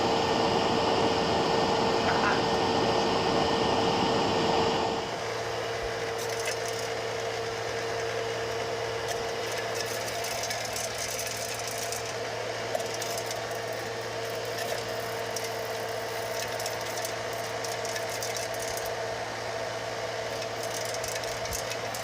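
A small electric motor running steadily with a whine. About five seconds in the tone changes and it drops a little in level, settling into a lower hum with light crackling on top.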